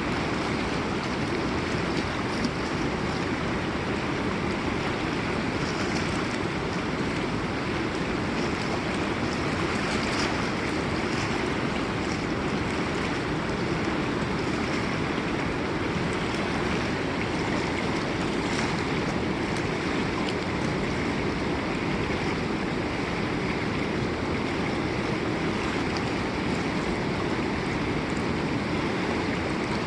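River water rushing and splashing over rocks, a steady continuous flow.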